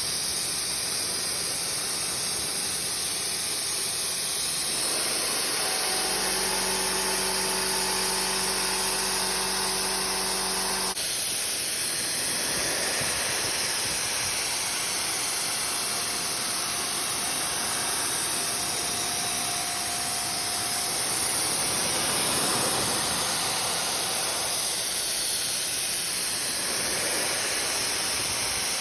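ProtoTrak CNC mill machining a D2 tool-steel block: steady machine running noise with a strong hiss. A steady hum joins a few seconds in and cuts off suddenly about a third of the way through.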